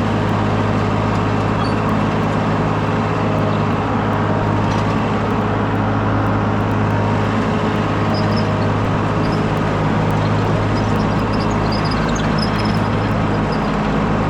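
Skid steer engine running steadily at a constant speed, a loud even drone with a strong low hum.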